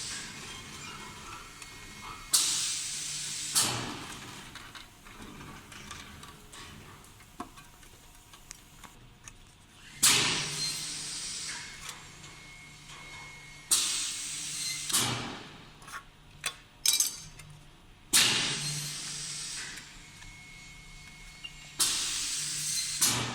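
CNC channel-letter bending machine at work, bending aluminium or steel strip. About seven sudden clunks come at irregular intervals, each followed by a hiss that dies away over about a second. A low steady hum and a few small clicks run between them.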